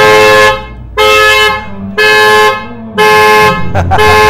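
Tesla Sentry mode alarm going off: the car's horn honks in short, loud, regular blasts, about one a second, set off by banging on the window with no phone key near.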